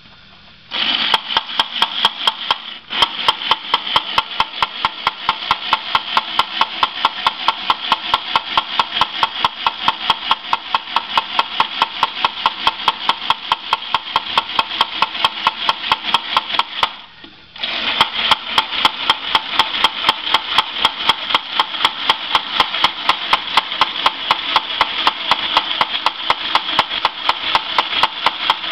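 Remco Hawkeye battery-operated toy pom-pom gun firing: its electric motor whirs under a rapid, even clatter of clicks, several a second. It starts about a second in, stops briefly about two-thirds of the way through, then starts again.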